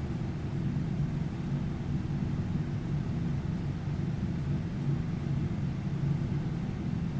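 Steady low background hum with no breaks or distinct events.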